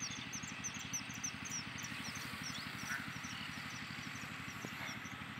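A motor running steadily with a fast, even low putter, under many quick, high bird chirps repeating throughout.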